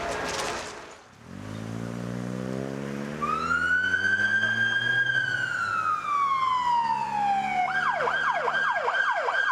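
Emergency vehicle moving off: its engine revs up, and about three seconds in a siren starts with one long wail that rises and then slowly falls. Near the end the siren switches to a fast yelp of about four falling sweeps a second.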